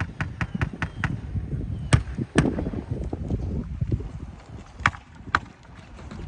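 Storm wind buffeting the microphone as a low rumble, with a run of sharp clicks and knocks, the loudest about two and two and a half seconds in and twice near five seconds.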